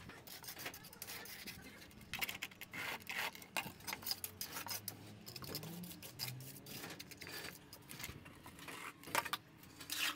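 Steel mason's trowel and float scraping and smoothing wet concrete on stair steps, a run of irregular scrapes and light clicks.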